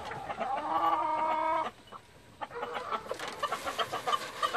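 Hens clucking: a drawn-out, wavering call for the first second and a half, a brief pause, then a run of short, quick clucks.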